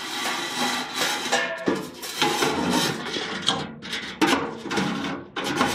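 Metal furnace parts clattering and scraping in irregular bursts as they are handled by hand inside a gas furnace's burner compartment.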